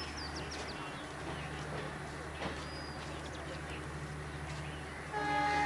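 Steady low hum of the train's idling diesel engine, with birds chirping over it. Just before the end a loud, held pitched tone sets in.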